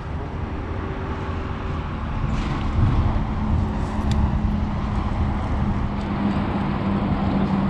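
Boat motor running steadily with a low hum, growing louder about two seconds in, over wind noise.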